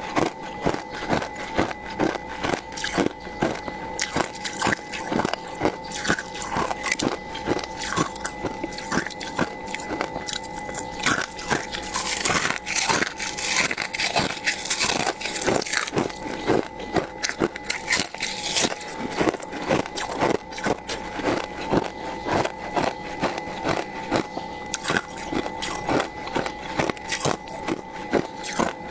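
Thick freezer frost being scraped, a fast irregular run of crunches and crackles, with a harsher scraping hiss about twelve to sixteen seconds in. A faint steady hum runs underneath.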